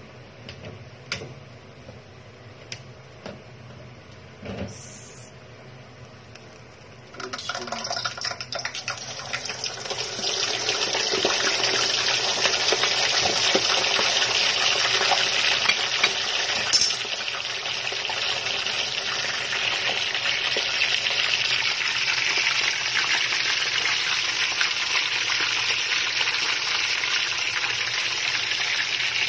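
A few light clicks and knocks, then about seven seconds in a whole chicken goes into hot oil: a loud sizzle of deep-frying starts suddenly, builds over the next few seconds, and keeps going steadily.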